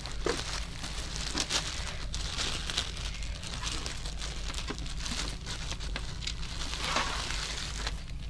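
Plastic wrapping crinkling and rustling in irregular handfuls as it is handled and pulled off a boxed exit sign.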